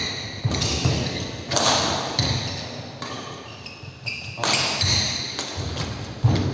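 Badminton rally: rackets striking the shuttlecock with sharp ringing pings, roughly one a second, each echoing off the hall. Brief sneaker squeaks on the court floor come in between, one about four seconds in.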